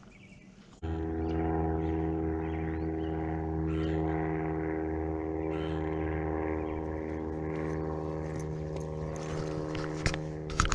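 A steady engine drone that starts abruptly about a second in and holds an even pitch, with faint bird chirps above it and a couple of sharp clicks near the end.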